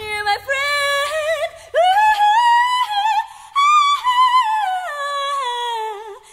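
A female voice singing alone, unaccompanied, holding long wavering notes that climb to a high peak about halfway through and then slide slowly back down.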